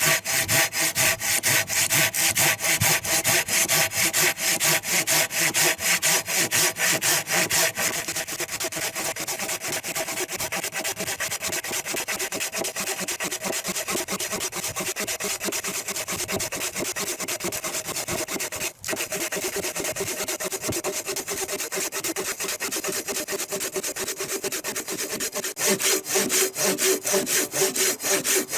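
Sawing firewood by hand with a Samurai MP 210 MH pruning saw: fast, even back-and-forth strokes of the blade through the wood. The strokes are loud at first, go quieter about eight seconds in, stop for a moment near the middle, and grow loud again near the end.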